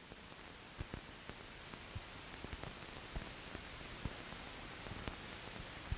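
Steady hiss of an old film soundtrack, with faint, irregular clicks and pops scattered through it.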